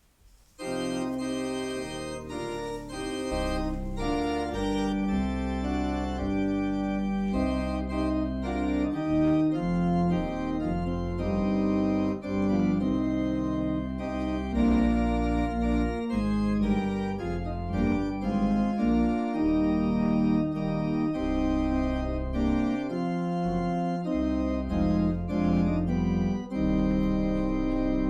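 Church organ playing a hymn in sustained block chords, starting about half a second in, with short breaks between phrases.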